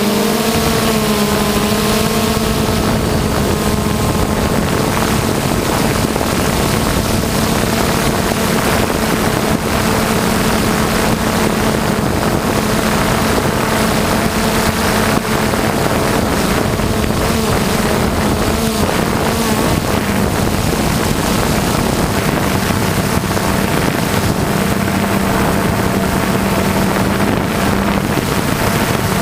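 Camera drone's propellers buzzing steadily over a hiss of wind and rushing air. The pitch wavers during the first couple of seconds, then holds steady.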